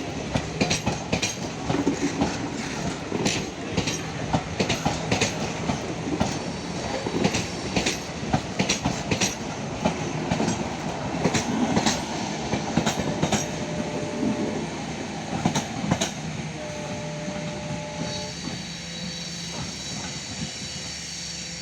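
Passenger coaches of an express train rolling past, their wheels clicking sharply over rail joints in quick irregular clusters over a steady rumble. The clicks thin out over the last several seconds and the sound gets a little quieter.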